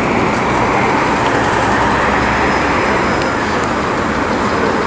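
Steady street traffic noise, a continuous rush of passing vehicles.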